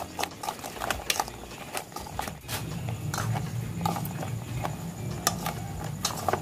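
A metal spoon stirring fried soya chaap pieces through yogurt in a stainless steel bowl, giving irregular clicks and scrapes of spoon on steel. A steady low hum sets in about two and a half seconds in.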